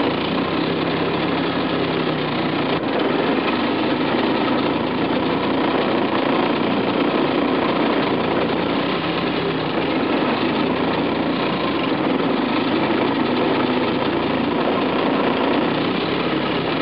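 A 1939 South Bend Bendix Eclipse air-cooled two-stroke outboard motor running steadily under way, pushing a small jon boat, with no let-up.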